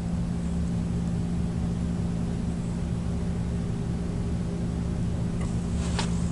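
Steady electrical hum from the bench high-voltage power supply feeding the meter, with a light click near the end.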